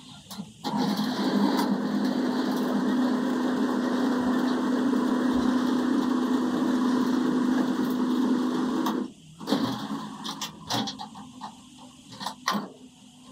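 A motor-driven machine runs steadily with a strong low hum, starting just after the beginning and cutting off suddenly about nine seconds in. A few scattered clicks and knocks follow.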